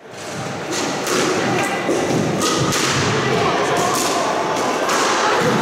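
Squash rally: the hard rubber ball cracks off rackets and the court walls in sharp single hits, roughly one a second.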